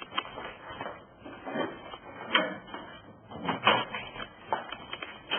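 Several sharp clicks and knocks, irregularly spaced: an X-ray tube head and collimator being handled, moved and locked into position.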